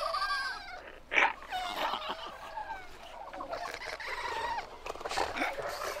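Kerguelen (Antarctic) fur seals calling close up in a breeding colony. Several animals call at once, overlapping, each call wavering up and down in pitch. One loud, sharp call comes about a second in.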